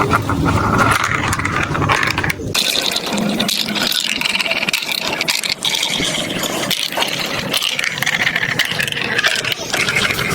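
Marbles rolling and clattering down a plastic marble-run track: a steady rolling rumble dotted with small clicks. About two and a half seconds in, the deep part of the rumble drops away, leaving a lighter, higher rattle.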